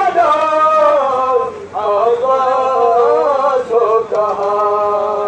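A man chanting a mourning lament (noha) in long, held, melodic phrases, with one brief pause about a third of the way in.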